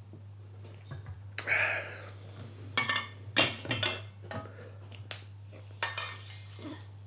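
Plates and cutlery being handled: a run of clinks and knocks of metal and crockery, over a steady low hum.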